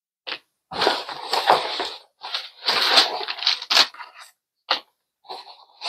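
Crumpled brown packing paper rustling and crinkling as it is pulled from a cardboard shipping box, with the box flaps being handled. It comes as several irregular bursts with a few sharp crackles among them.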